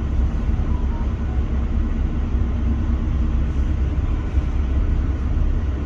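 Steady low rumble of a KiHa 183 series diesel express train under way, heard inside the carriage.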